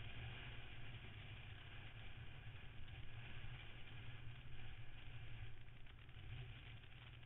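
Motorcycle engine running steadily with wind and road noise, heard from a camera mounted on the bike. It quietens over the last couple of seconds as the bike slows.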